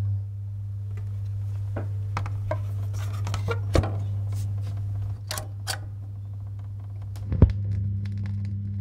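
Old-film soundtrack noise: a steady low hum with scattered sharp crackles and pops, two louder pops about four seconds in and near the end.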